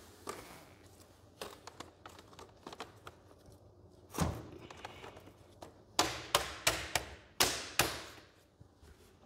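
Interlocking plastic Ribtrax Pro garage floor tile being snapped into place: scattered light taps and a thud, then a quick run of about six sharp snaps as its tabs are pressed home.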